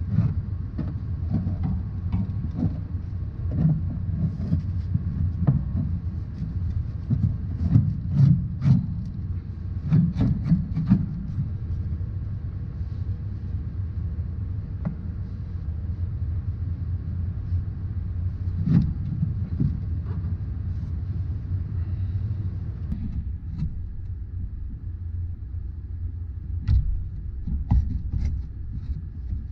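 A steady low rumble with scattered short knocks and clicks. The knocks are thickest in the first third, and the rumble thins a little about three-quarters of the way through.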